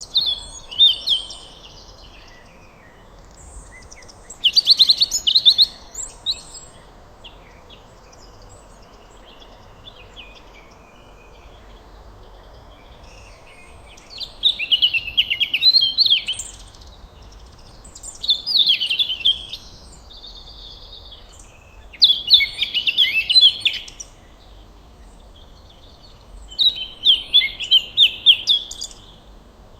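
Birds chirping in about six separate bursts of rapid high notes, each lasting a second or two, with pauses between them over a faint steady background hiss.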